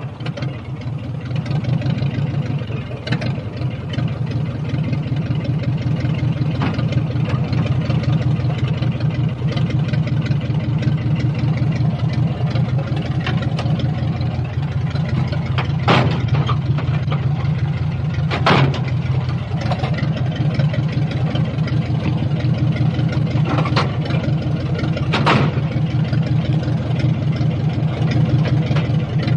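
Old car engine idling steadily with an even, rapid firing beat, with a few short sharp clicks over it.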